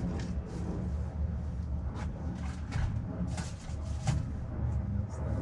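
Scattered light clicks and knocks, as from tools and parts being handled, over a steady low rumble.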